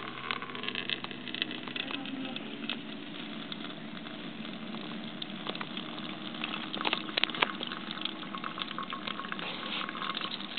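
Water draining from a metal bowl into a plastic jug below it, a steady crackly trickle of fine drips and splashes.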